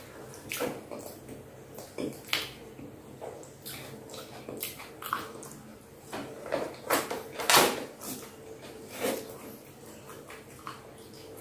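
Petai (stink bean) pods being split open by hand and the beans chewed: irregular crisp snaps and crackles of the pod mixed with wet mouth clicks, the loudest snap about seven and a half seconds in.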